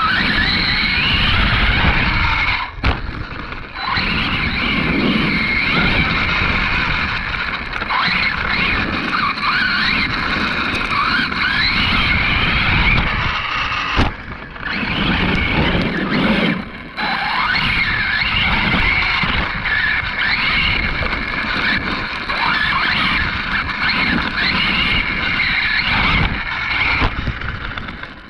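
Arrma Kraton 6S RC truck's brushless motor and drivetrain whining under throttle, heard from a camera mounted on the truck, the pitch rising and falling as it accelerates and slows over grass. The sound drops away briefly a few times, about three seconds in and twice around the middle, as the throttle is let off.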